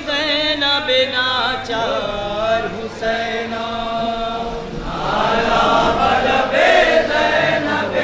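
Men's voices chanting a mournful noha lament together, with long wavering held notes. More voices fill in and it grows louder about five seconds in.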